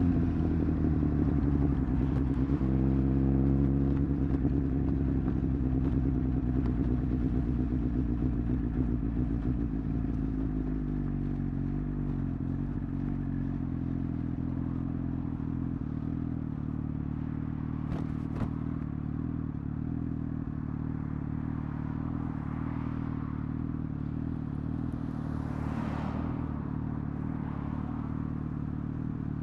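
Suzuki GSX-S1000 inline-four engine, its revs falling away in the first few seconds and then settling into a steady low-rev note. A single sharp click sounds about 18 seconds in, and another vehicle's noise swells and fades near the end.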